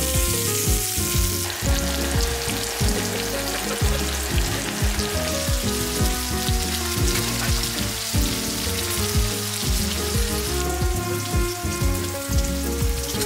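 Background music with a steady beat, over food sizzling and frying in a pan.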